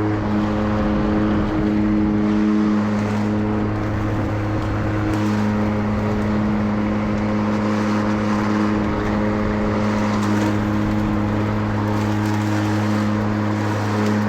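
Mowrator 2WD remote-control mower running while mowing, its battery-electric motors and spinning blade giving a steady, even hum.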